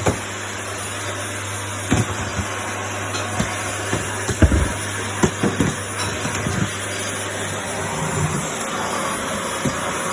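Vacuum cleaner running steadily, with scattered knocks and bumps as the nozzle is pushed around.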